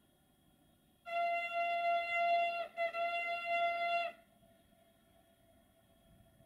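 Horn of an approaching Duewag BR628 diesel multiple unit sounding two blasts on one steady pitch, about a second and a half each with barely a break between them, starting about a second in.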